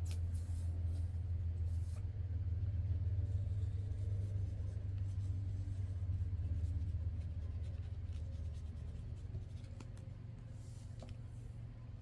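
Faint rustling and light taps of paper and lace being handled and glued onto a book page, over a low steady rumble that fades over the second half.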